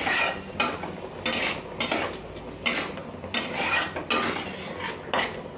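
Wooden spatula stirring and scraping thick masala paste around a non-stick kadai as it fries, in a run of short scraping strokes about one every two-thirds of a second.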